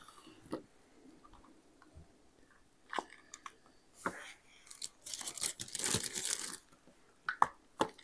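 Hard-candy cough drops being pressed and popped out of a flexible silicone mold by hand: scattered sharp clicks, with a longer rustling stretch about five to six and a half seconds in.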